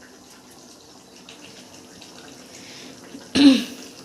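Chicken curry simmering in a pot on a gas stove, a faint steady bubbling hiss with small ticks, close to done. A short louder sound breaks in about three and a half seconds in.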